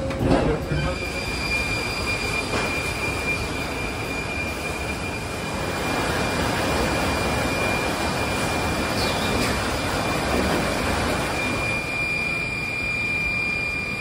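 Sawmill machinery running: a dense, steady mechanical din with a constant high whine that sets in about a second in.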